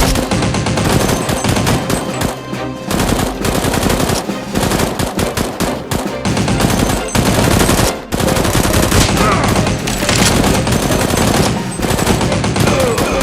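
Rapid automatic gunfire, shots coming in dense, near-continuous bursts with brief breaks between them.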